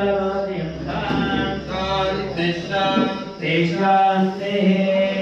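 Male voices chanting a mantra together, the notes held and slowly stepping in pitch over a steady low tone.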